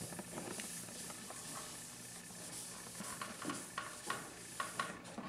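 Felt chalkboard eraser rubbing back and forth across a chalkboard: a steady scrubbing hiss that stops near the end, with several light ticks and knocks in the second half.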